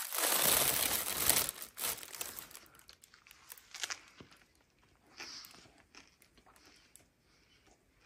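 Thin plastic bag crinkling and rustling as it is handled, loudest over the first two seconds, then scattered softer rustles and crackles.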